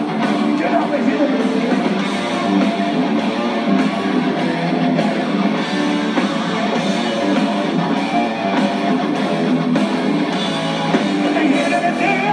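Background rock music led by electric guitar, playing steadily.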